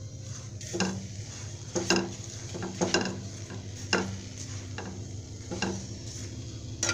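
A plastic spatula pressing and scraping a puffed paratha in an oiled non-stick frying pan, with a stroke about once a second, over a light frying sizzle.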